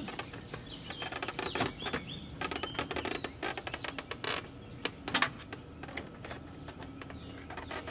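Screws being backed out of a car door trim panel with a screwdriver: a run of small clicks and ticks, with a few sharper knocks.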